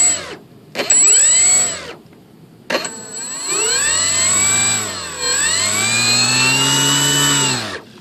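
Brushless electric motor spinning a folding propeller, run up and down from the radio's throttle to test throttle and the speed controller's brake. First comes a short whine that rises and falls about a second in. A longer run from about three seconds climbs, dips, climbs again, then winds down and stops near the end, with a steady high whine over each run.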